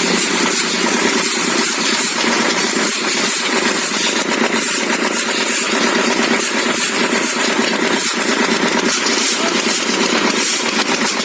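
Small motor running steadily with a fast, even buzz.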